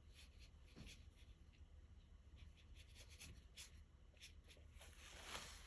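Faint scratching and light taps of a paintbrush working on watercolour paper, with a soft brushing hiss about five seconds in.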